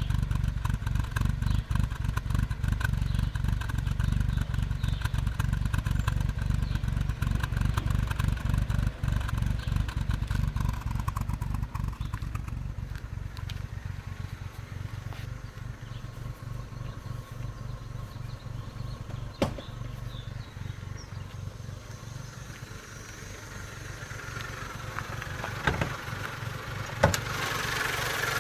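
Mazda Protege5 engine running at a rough idle: an uneven low pulsing that settles somewhat quieter about halfway through, with a few sharp clicks in the second half.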